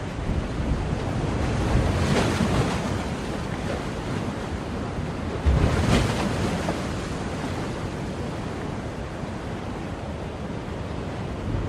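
Ocean surf: waves washing in and breaking in a continuous rush, with one louder wave crashing about five and a half seconds in.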